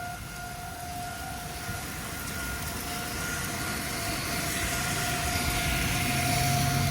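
Outdoor civil-defense warning siren sounding a tornado warning on one steady pitch, under a low rumbling rush that grows louder over the second half.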